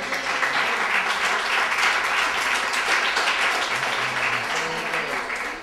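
Audience applauding: a steady round of clapping that tails off near the end.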